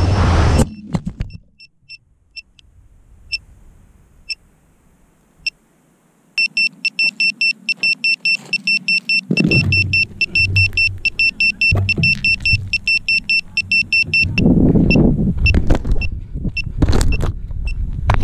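An FPV racing quad's motor and wind noise cuts off abruptly under a second in as the drone crashes; the pilot's only guess is that standing under power lines caused it. The drone's buzzer then gives scattered short beeps, and from about six seconds a rapid, steady beeping, about four a second, as a lost-model alarm does. Rumbling handling and wind noise grows toward the end as the drone is picked up.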